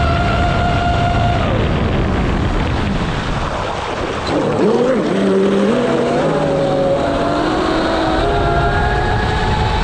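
Twin SSS 2075kv brushless motors of a TFL Zonda RC speedboat running on 6S, a whine over a steady rushing noise. The pitch holds, falls about a second and a half in as the throttle eases, wavers low through the middle, then climbs again over the last few seconds.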